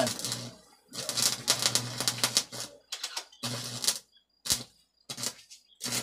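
Homemade arc welder built from a microwave oven transformer, its electrode arc crackling and sputtering in irregular bursts as it is struck on the metal. One long burst about a second in is followed by several short ones, with a low hum under the longer bursts.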